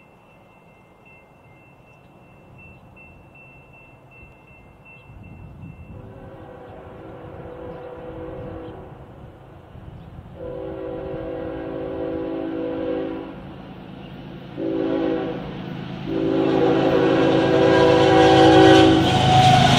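Horn of a Norfolk Southern ES44AC diesel locomotive sounding the grade-crossing signal as the train approaches: long, long, short, long. The blasts get louder over a rising engine and rail rumble, and the horn's pitch drops near the end as the locomotive draws level.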